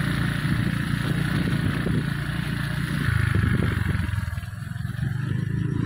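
Small motor scooter engine running at low speed, easing off briefly about four seconds in and then picking up again.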